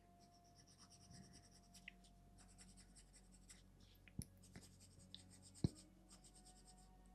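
Faint scratching of a coloured pencil shading on paper in quick runs of short back-and-forth strokes, with two small sharp knocks about four and five and a half seconds in.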